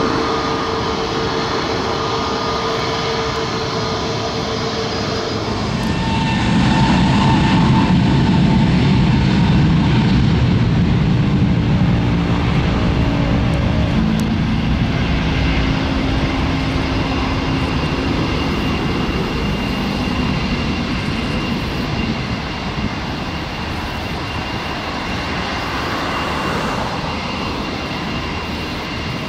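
Airbus A321 jet engines running at low power as the airliner taxis: a steady rumble with held whining tones, louder for several seconds from about six seconds in.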